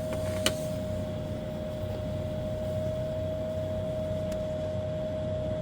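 A steady hum with a constant mid-pitched tone, and one sharp click about half a second in as the grow light's parts are handled during reassembly.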